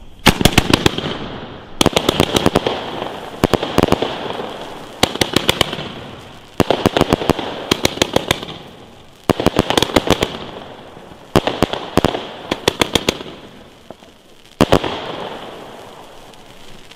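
Vuurwerktotal White Red Rebel fireworks cake firing volley after volley, one every second and a half to two seconds. Each volley is a quick cluster of sharp bangs that dies away into a fading crackle. The last volley comes about fifteen seconds in.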